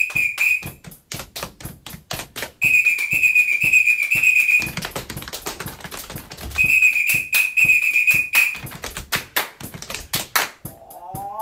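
Body percussion: quick hand claps and slaps on the body in a steady rhythm, with a trilling whistle blown in blasts of about two seconds, three times. Near the end a rising vocal cry begins.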